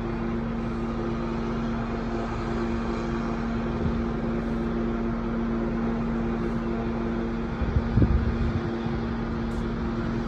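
Ambulance helicopter running on the ground, building rotor RPM before lift-off: a steady hum of engine and rotor with a constant low tone. A brief low thump about eight seconds in.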